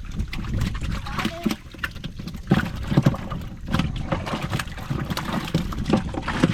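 A series of irregular knocks and thumps, some sharp and some dull, over a low rumble.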